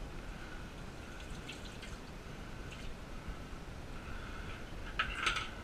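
Water dripping and small wet clicks as gloved hands work a fish in a stainless steel kitchen sink, with a short, louder burst of knocking about five seconds in.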